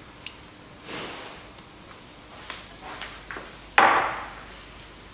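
Kitchen handling sounds: a few light clicks and rustles, then about four seconds in a loud glass clink that rings briefly, as a glass bowl is picked up and set down.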